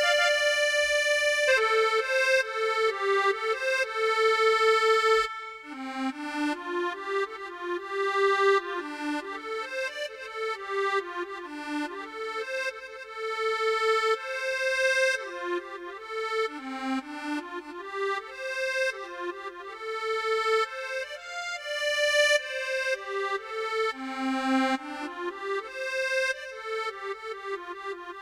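Roland Fantom X6 keyboard playing a sustained, accordion-like voice: a chord held for about five seconds, then a winding, unbroken melody line.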